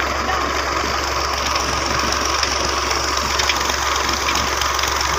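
Steady rush of water pouring into a pond and churning the surface, over a constant low engine hum.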